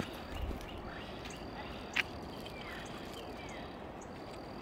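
Quiet riverbank ambience with a faint, steady, high-pitched insect trill that breaks off briefly and resumes. A single sharp click comes about two seconds in.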